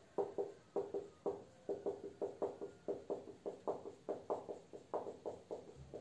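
Marker pen writing on a whiteboard: a rapid run of short squeaky strokes, about three to four a second, as letters are drawn.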